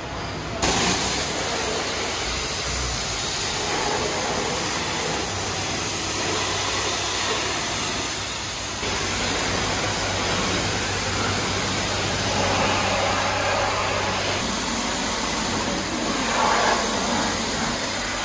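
High-pressure car-wash lance spraying water onto a car body in the pre-wash rinse, a steady hiss that starts suddenly about half a second in.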